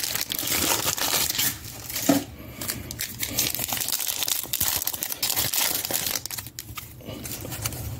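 Foil trading-card pack wrapper crinkling and being torn open by hand, an irregular crackle that is louder in the first half.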